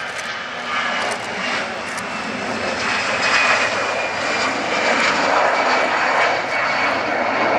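Airbus A320-214's twin CFM56-5B turbofan engines at takeoff thrust as the airliner lifts off and climbs away. A loud, steady jet noise with a thin high whine running through it, growing louder over the first few seconds and then holding.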